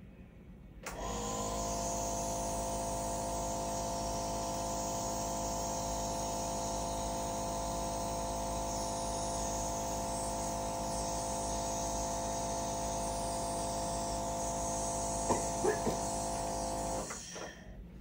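Nebulizer compressor running steadily, a motor hum with a hiss of air, as it delivers a citric-acid mist through the face mask for a cough-reflex challenge. It starts about a second in and cuts off about a second before the end, with a few short sharp sounds just before it stops.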